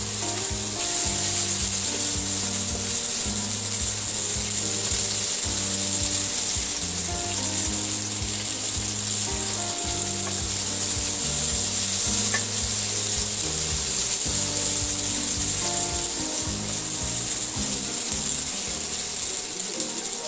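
Onions and tomatoes sizzling steadily in hot mustard oil in a non-stick wok as they fry, stirred with a spatula, with one light tap of the spatula about twelve seconds in. Soft background music plays underneath.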